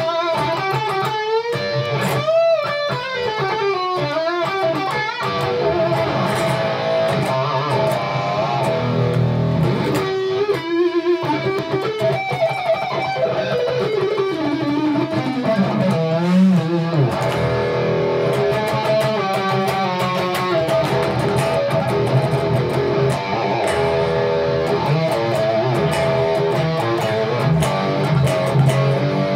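1983 Gibson Les Paul Custom electric guitar, freshly refretted, played through a Fractal FM9 amp modeller on its Archon amp model. It opens with lead lines bent and shaken with vibrato, has a long downward slide about halfway through, and moves into repeated chordal riffing.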